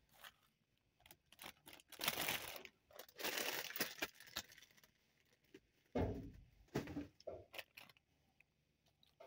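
Plastic bags of produce rustling and crinkling as they are handled and shifted, in several short bursts, with a dull thump about six seconds in.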